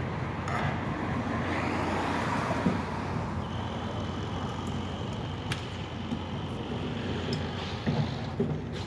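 Road traffic noise with a vehicle going past, a thin steady high tone through the middle and a single click.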